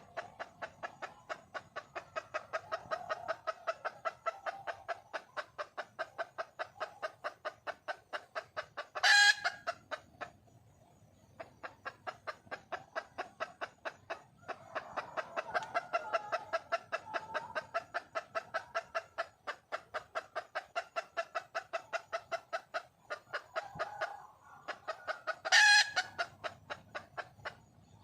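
Junglefowl hen calling for a mate: a long fast run of clucks, about four to five a second, broken twice by a loud short squawk, the first followed by a pause of a second or so before the clucking starts again.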